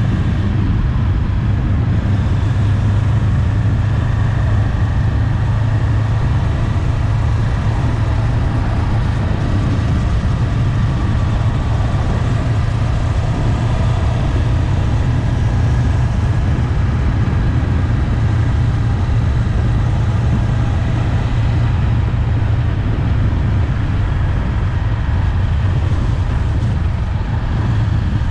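Honda 400X parallel-twin motorcycle engine running at a steady cruising speed, with wind rushing over the microphone.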